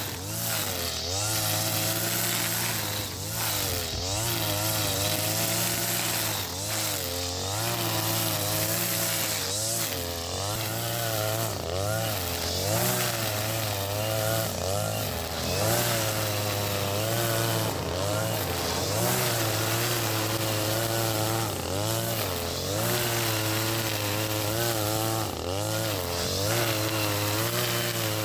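Husqvarna 542RBS 42cc two-stroke brush cutter running with 2.4 mm square trimmer line, its engine pitch rising and dipping every second or so as it cuts grass.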